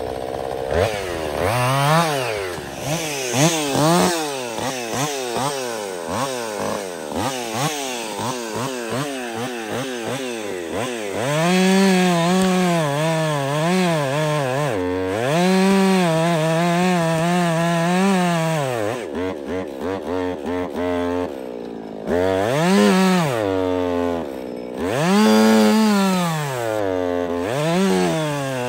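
Woods-ported Jonsered 2156 two-stroke chainsaw cutting cherry logs, revved up and down repeatedly. It is held at full throttle in the cut with a slight wavering under load, and drops back to idle between cuts.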